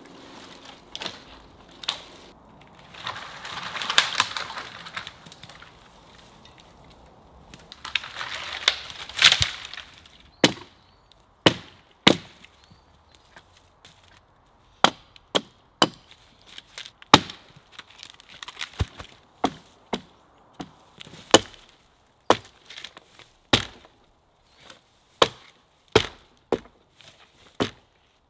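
A dead tree being pulled down, its wood cracking and snapping in two bursts, followed from about ten seconds in by a hatchet chopping the branches off the fallen log in sharp, separate strikes, about one or two a second.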